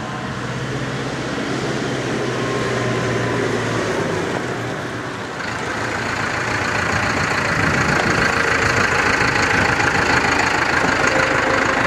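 Landini Vision 105 tractor's diesel engine running as it tows a slurry tanker up a lane toward the microphone, growing steadily louder from about five seconds in as it draws close.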